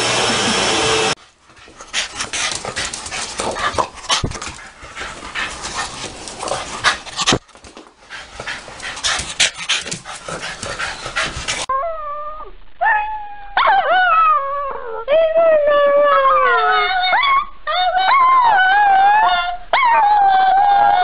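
Small long-haired white dog howling: a string of long, wavering howls that rise and fall, starting a little past halfway. Before that come about ten seconds of scattered clicks and scuffling noise, after a steady hum in the first second.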